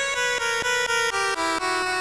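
Amiga demo soundtrack: tracker-module music played from sampled instruments, a melody of short pitched notes at about four a second that steps lower in the second half.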